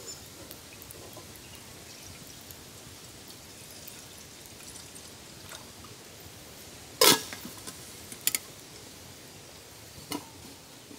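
Water poured from a steel bottle into a metal cooking pot. A sharp metal clank sounds about seven seconds in, the loudest sound, followed by two lighter clinks, and a knock near the end as the pot is set on the small wood-burning stove.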